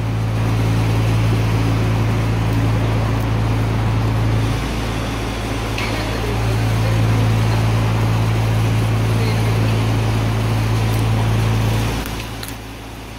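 Seed-roasting line machinery running: a steady low hum over a broad mechanical rush. It drops noticeably in level about twelve seconds in.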